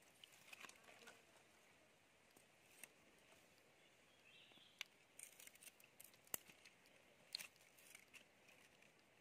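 Faint, light rustling with scattered sharp clicks and ticks over quiet background hiss. The sharpest click comes a little past the middle, with another burst later on.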